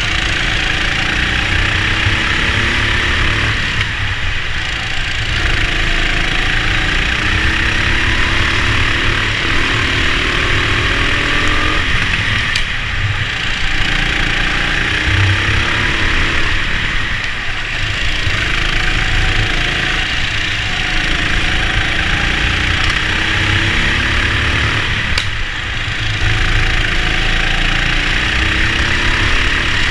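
Go-kart engine heard from on board while racing, its pitch climbing along each straight and falling away at the corners, about four times. Other karts run alongside.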